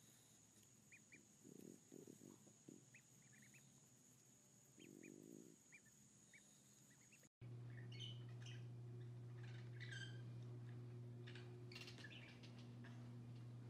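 Ducklings peeping softly, a scatter of short, high peeps, with a couple of soft, muffled low sounds among them. About seven seconds in the sound cuts to a steady low hum with scattered high chirps and clicks.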